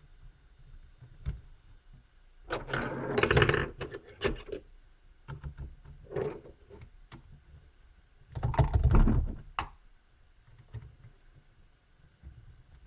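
Plastic clicking and scraping as an Acer Aspire 4810T laptop keyboard is pried up from its tight retaining latches. There are two longer bursts of scraping, about three seconds in and again near nine seconds, with scattered single clicks between them.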